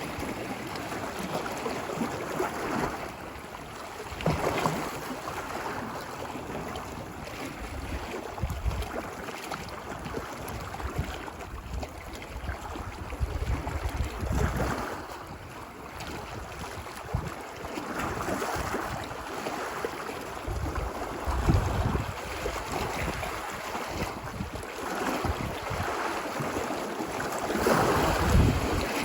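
Ocean surf washing ashore on a beach, swelling louder with each incoming wave every few seconds, with wind rumbling on the microphone.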